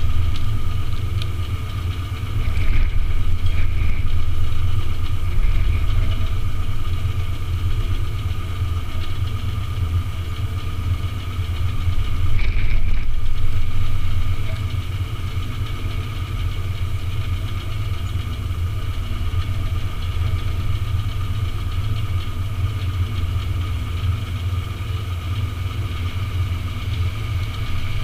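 An engine idling steadily, a deep rumble with a steady whine over it that swells briefly about halfway through.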